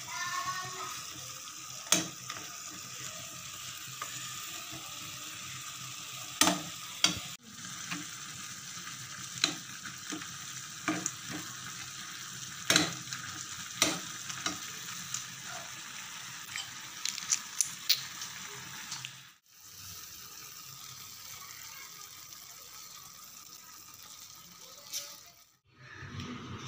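Maggi noodles and peas sizzling and simmering in a steel pan, stirred with a steel spoon that scrapes and gives scattered sharp clinks against the pan.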